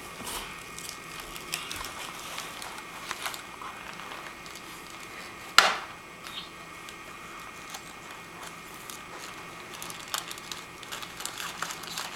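Paper rustling and crinkling as a gift box is unpacked by hand, with scattered small crackles and one sharp click about five and a half seconds in.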